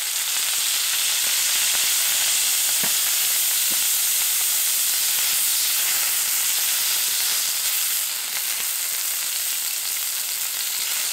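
Pork, peppers and a mushroom sizzling in oil on a hot griddle: a steady frying hiss, with a couple of faint clicks about three seconds in.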